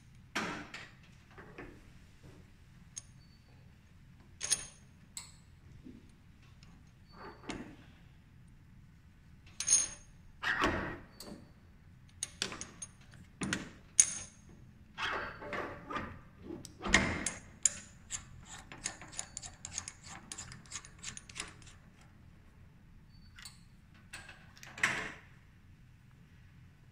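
Metal clinks, clicks and knocks of a laser machine's articulated arm being handled and seated onto its aluminium mount, several with a short metallic ring. A quick run of small ticks lasts about four seconds past the middle.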